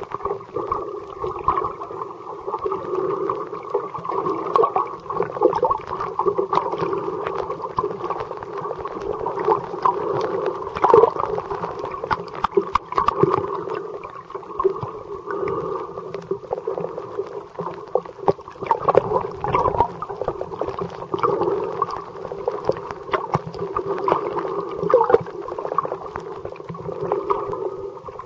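Underwater sound picked up by a camera in its waterproof housing: a steady, muffled wash of water with frequent small clicks and knocks.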